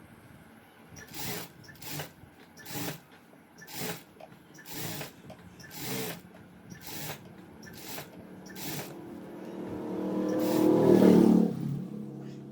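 Electric sewing machine speeding up and stitching in one run near the end, then slowing to a stop. Before it come short, sharp swishes about once a second.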